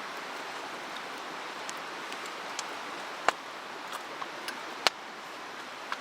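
Steady rush of a mountain stream, with sharp pops from a wood campfire crackling; the two loudest pops come about three and five seconds in.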